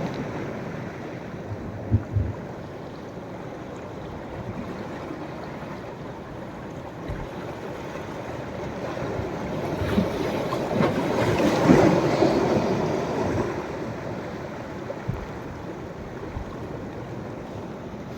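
Sea waves washing onto a beach on a rising tide, with a steady surf wash; a bigger wave swells and breaks around twelve seconds in, then dies away.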